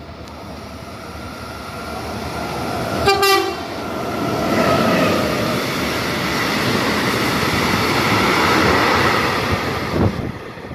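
Freight train of tank wagons running through the station at speed. The locomotive sounds one short horn blast about three seconds in, then the wagons rush past with loud rolling noise on the rails that drops away about ten seconds in.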